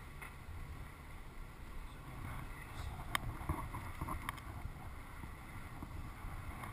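Low steady rumble of road and engine noise inside a moving car's cabin, with a few faint clicks about three to four seconds in.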